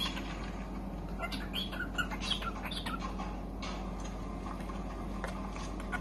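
Cockatiel chirping: a quick run of short calls through the first half or so, which stop a little after three seconds in, over a steady low hum.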